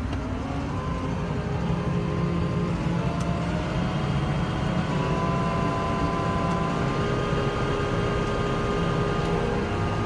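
Case Puma tractor engine running steadily with the PTO just engaged, driving a Krone 3210 CRI disc mower conditioner. Higher steady whining tones come in early and build from about halfway through as the mower spins up.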